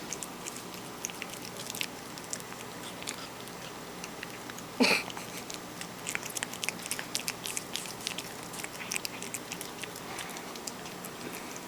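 A cat chewing banana: irregular wet smacking and clicking bites, thickest in the second half. One short louder noise breaks in about five seconds in.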